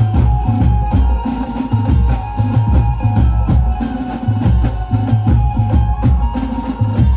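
Live banjo-band music: several drummers playing a fast, driving rhythm on sets of tuned drums and cymbals over a deep, stepping bass line, with a steady melody line above.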